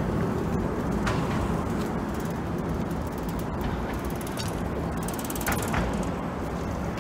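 Steady street-traffic rumble, with two short runs of fast, fine mechanical ticking like a ratchet, about two and a half and five seconds in, and a few sharp clicks.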